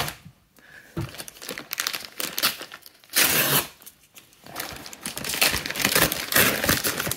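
Brown kraft-paper mailer being torn open and crinkled in the hands: irregular tearing and crackling of paper, loudest about three seconds in, with a busy run of crinkling near the end.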